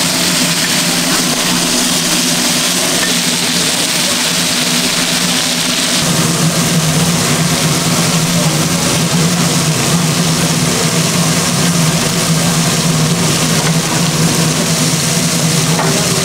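Steady machine hum over a constant hiss; the hum grows stronger about six seconds in.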